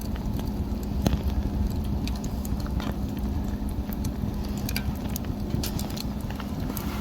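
Wood fire crackling, with irregular sharp pops and snaps over a steady low rumble; the loudest pop comes about a second in.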